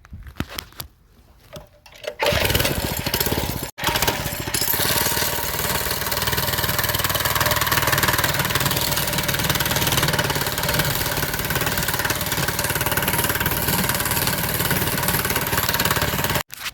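Small mini-bike engine, after sitting for years, catching about two seconds in and running steadily as the bike is ridden a short way. The sound cuts off suddenly near the end.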